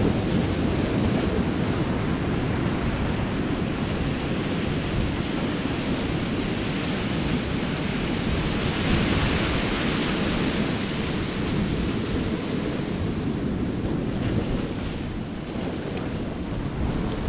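Wind buffeting the microphone over the steady wash of sea waves. The hiss of the water swells briefly about nine seconds in.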